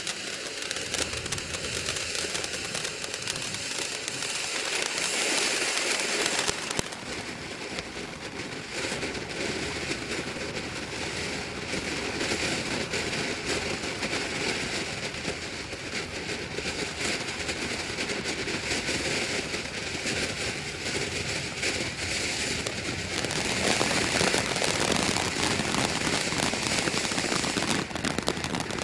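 A 200-gram ground fountain firework burning: a continuous spray of sparks full of crackling pops. It grows louder for a couple of seconds about five seconds in, and again for the last few seconds.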